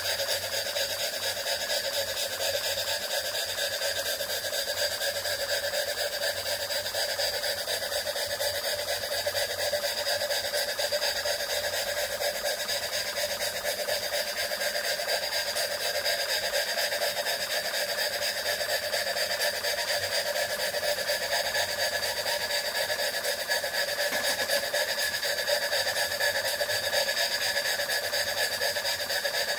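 Jensen 20G model steam engine running steadily at speed, its exhaust beating rapidly through an Austin Demon chuff pot.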